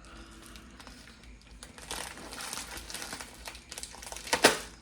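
Packaging crinkling and rustling as it is handled and opened, with a short louder rustle near the end.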